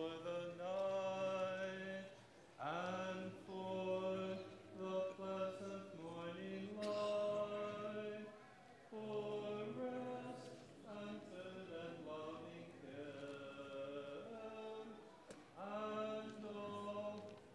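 Congregation singing a hymn a cappella in several voice parts, with long held notes in phrases that break every few seconds.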